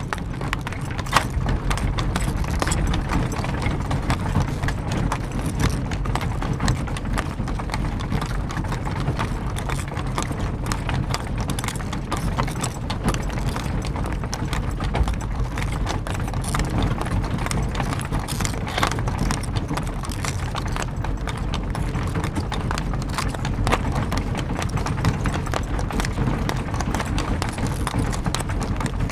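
Horse-drawn carriage under way: the horse's hooves clip-clopping steadily over a continuous low rumble.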